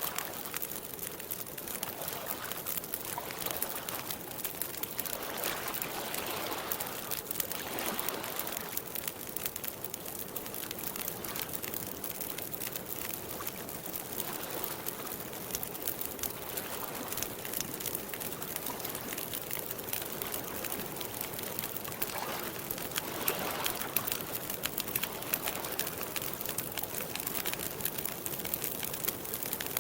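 Campfire crackling with many small pops, over soft lake water lapping in gentle swells every second or two.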